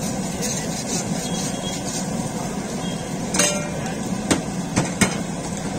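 A steel spatula clanking on a flat iron griddle, four sharp strokes in the second half, over a steady sizzle of frying oil.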